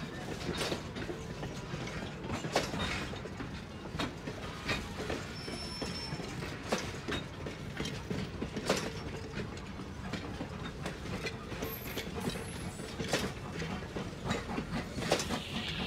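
Vintage railroad passenger coaches rolling slowly past: a steady low rumble of steel wheels on rail with irregular clicks and clacks as the wheels pass over the track.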